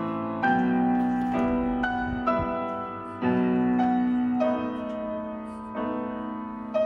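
Background piano music: a slow, gentle melody with a new note or chord roughly every second, each ringing and fading.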